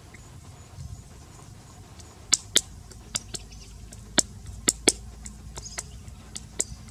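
Bare hands patting and shaping a ball of wet mud: a run of sharp, irregular pats, the loudest about two and a half seconds in and again between four and five seconds in.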